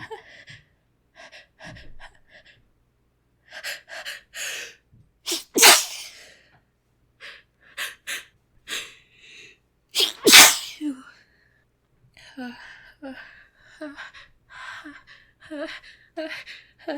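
A woman sneezing twice. Quick gasping in-breaths lead to a sharp sneeze about six seconds in and a second, louder sneeze about ten seconds in, followed by a string of short voiced gasps.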